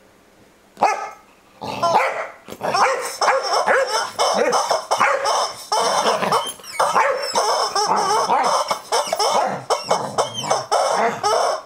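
Rubber screaming-chicken toy squawking over and over as a corgi bites and shakes it, mixed with the dog's barks and yips. Near silence at first, then the squawks come thick and fast from about two seconds in.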